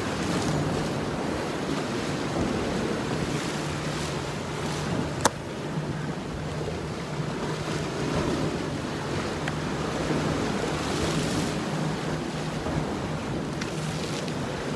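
Sea surf washing against a rocky shoreline, with wind noise on the microphone. A single sharp click about five seconds in.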